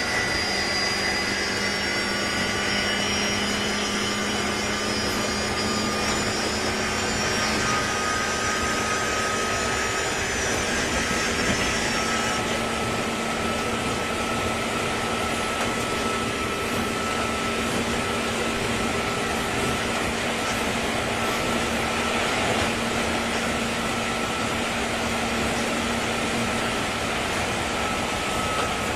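JR 201 series electric train heard from inside the motor car while running: steady wheel and rail noise with whining tones from the traction equipment, the higher-pitched ones dropping away about twelve seconds in. The jet-like whine is an abnormal noise this car made under power.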